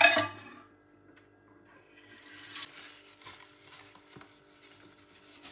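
Soft rubbing and scraping of things being handled on a kitchen countertop, loudest about two to three seconds in, over a faint steady hum.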